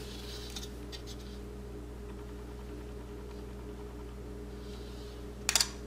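Faint scraping of a table knife spreading frosting over a cake layer, over a steady low hum. A brief louder rasp comes near the end.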